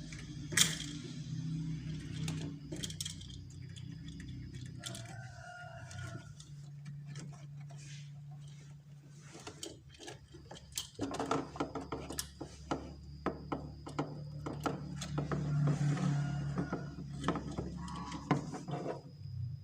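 Irregular clicks and knocks of hands and tools working, coming thicker in the second half, over a low steady hum.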